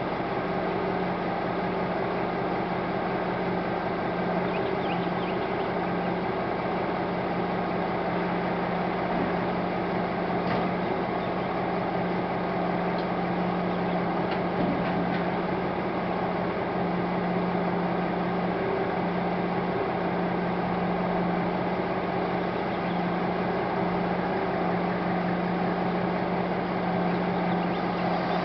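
An engine running at a constant speed with a steady mechanical hum, as a seed tender's auger conveys seed and fertiliser into an air seeder cart.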